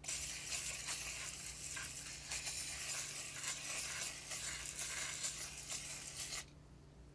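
Rusty bicycle chain being handled, its links clinking and rattling in a dense stream of small metallic clicks. It stops abruptly near the end.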